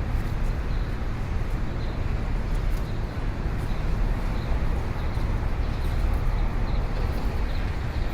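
Street ambience: a steady, dense rumble of road traffic, with a few faint short high chirps over it.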